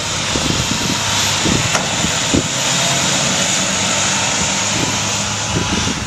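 Snowplow truck passing close by, its engine running steadily over a loud, even rushing hiss.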